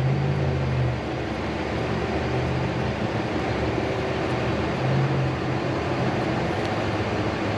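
Steady low mechanical hum of running machinery or a fan, with no distinct clicks or knocks.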